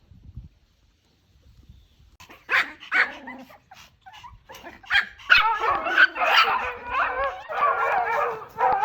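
Puppies yelping and whining. Two short, sharp yelps come a little over two seconds in. From about five seconds on comes a nearly continuous run of high, wavering whines and yips.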